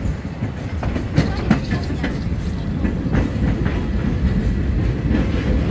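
Open-sided railroad passenger car rolling along the track: a steady low rumble of steel wheels on rail, with scattered clicks and knocks from the wheels and car.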